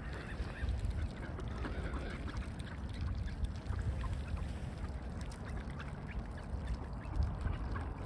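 Mallard ducks calling now and then at the water's edge, faint short calls over a steady low rumble.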